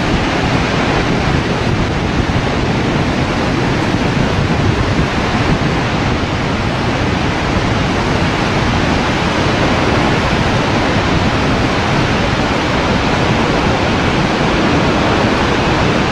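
Horseshoe Falls, the great waterfall at Niagara, giving a steady, unbroken rush of falling water.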